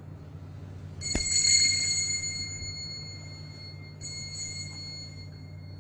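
Small altar bell rung about a second into the clip, with a brief knock as it sounds. It rings out and fades, then sounds again more softly about four seconds in.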